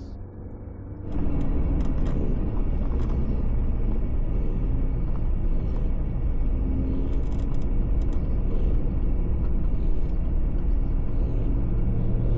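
Jeep Gladiator driving on the road: a steady rumble of engine and road noise with a faint hum, which gets suddenly louder about a second in and then holds steady.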